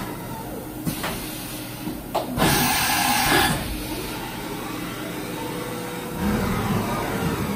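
Doosan DNM-400 CNC vertical mill traversing its axes under a test program: a steady mechanical hum of the axis drives as the table and spindle head move, with two clicks and about a second of loud hissing a little after two seconds in.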